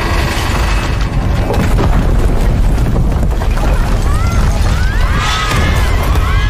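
Earthquake destruction in a film soundtrack: a heavy, continuous low rumble and booming of collapsing concrete buildings and an elevated overpass. In the last couple of seconds a cluster of short, high sounds rises and falls in pitch above the rumble.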